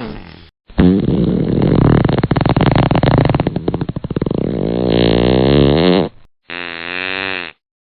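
Two loud fart sounds with dead silence between them. The first is a long buzzing one lasting about five seconds, its pitch wavering towards the end. The second is a shorter one about a second long with a wobbling pitch.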